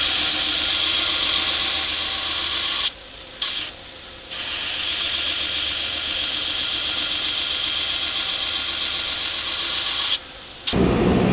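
Angle grinder with an abrasive cut-off wheel cutting through steel bar stock: a steady grinding hiss that breaks off briefly twice about 3 and 4 seconds in and again just after 10 seconds. Just before the end it gives way to the crackle of arc welding.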